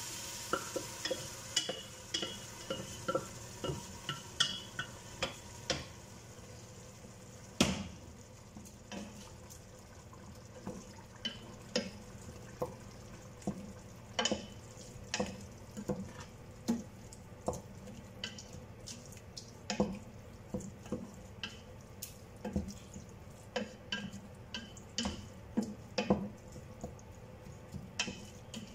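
A wooden spoon stirring ground meat and spinach in a stainless steel stockpot, knocking and scraping against the pot in irregular strokes about one or two a second, with one louder knock about 8 seconds in. Faint sizzling of the food cooking runs underneath.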